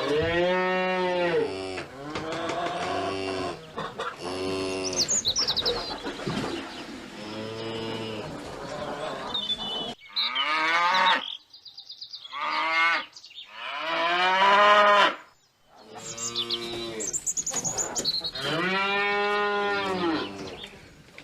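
Cattle mooing, one long call after another, each lasting a second or two.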